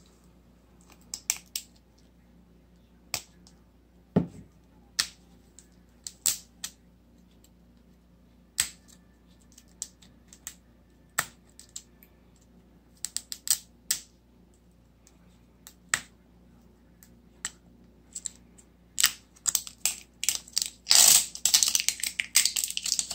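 Plastic wrapping of an L.O.L. Surprise toy ball being peeled and unwrapped: scattered sharp crackles and clicks, then a dense crinkling tear about three seconds before the end.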